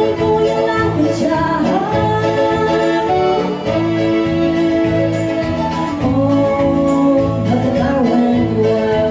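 Live music: a woman singing into a microphone over a small band's keyboard accompaniment.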